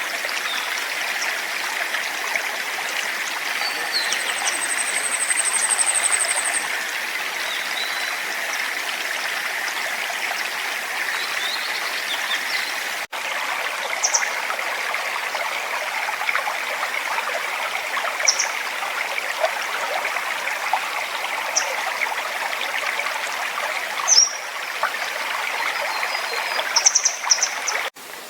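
A forest stream running steadily, with small songbirds calling over it: a fast, high, thin trill a few seconds in, then short high calls now and then, the loudest near the end.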